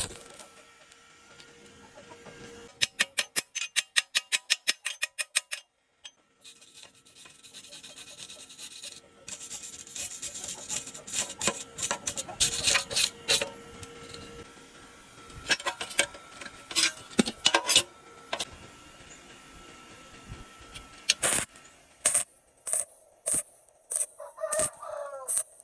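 Stick-welding arc crackling and spitting on thin galvanized steel, with many sharp pops. About three seconds in there is a run of rapid, evenly spaced taps. Near the end comes a short pitched call among scattered clicks.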